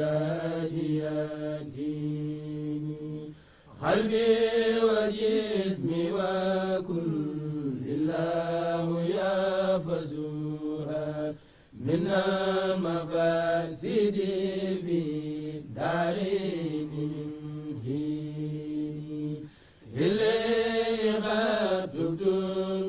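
Men chanting Arabic devotional verses in long, drawn-out, wavering phrases, with short breath pauses about every eight seconds.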